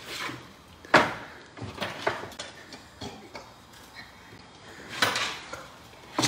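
Kitchen handling noises: several sharp knocks and clatters of cupboard doors and dishes, the loudest about a second in and about five seconds in, with lighter taps in between.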